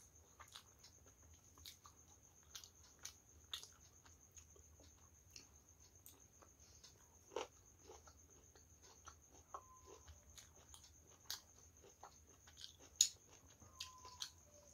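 Close-miked eating sounds: soft chewing, lip smacks and wet mouth clicks as someone eats pulao rice and chicken liver curry by hand, scattered and irregular. A faint steady high-pitched whine sits under it.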